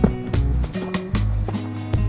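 Background music with a bass line and a steady drum beat.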